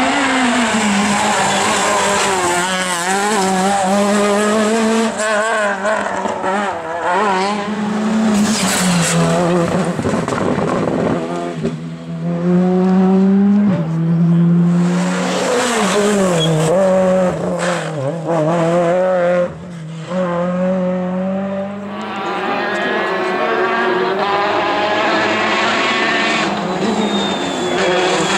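Rally cars on a tarmac special stage, their engines revving hard and dropping again and again through gear changes and bends as they pass.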